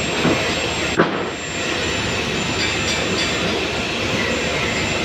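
Stick (SMAW) welding arc crackling and hissing steadily, with one sharp crack about a second in.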